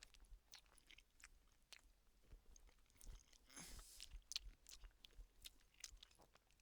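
Faint close-up chewing of chicken tikka and rice: soft wet mouth clicks scattered throughout, with a short breathy hiss a little past halfway.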